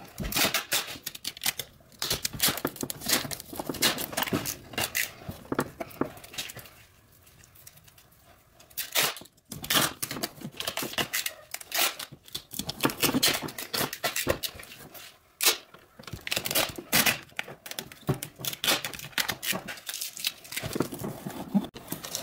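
Aluminium foil tape being pulled off its roll and pressed down by hand over crinkled foil: irregular crackling and tearing, with a quieter lull about seven seconds in.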